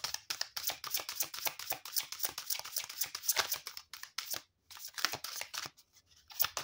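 A tarot deck shuffled in the hands: a fast, steady run of card flicks and slaps, breaking off briefly about four and a half seconds in before starting again.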